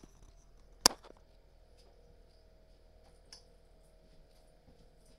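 Faint steady hum broken by one sharp click about a second in and a fainter tick about two seconds later.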